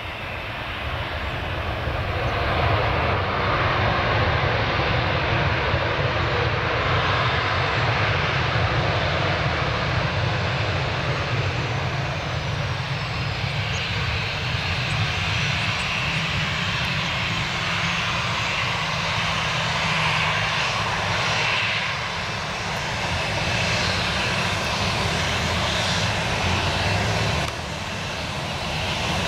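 Boeing 737-700 jet engines running loud as the airliner slows on its landing roll just after touchdown. The noise swells about two seconds in, holds steady, and drops suddenly near the end.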